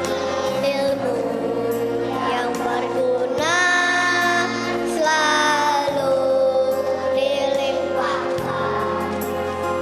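A choir of kindergarten children singing a song with instrumental accompaniment, holding several long notes.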